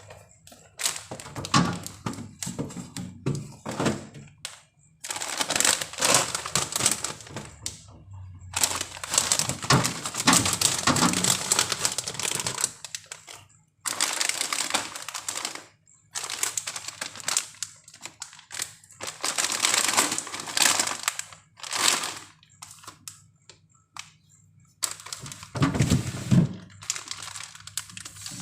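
Plastic food packaging rustling and crinkling as it is handled, in bursts a few seconds long with short pauses, with a few knocks near the end.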